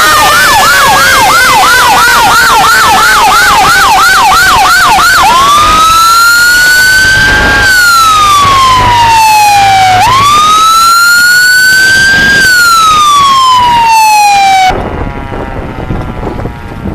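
Fire truck siren sounding loudly in a fast yelp for about five seconds, with a second tone sliding steadily down beneath it, then switching to a slow wail that rises and falls twice before cutting off suddenly near the end.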